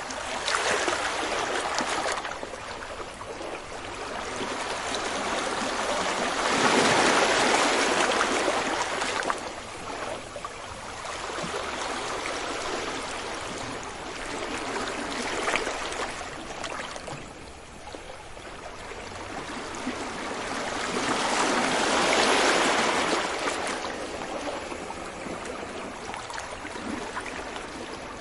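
Sea waves breaking on a beach: a continuous hiss of surf that swells and falls back in slow surges every several seconds, the loudest about a quarter and three quarters of the way through.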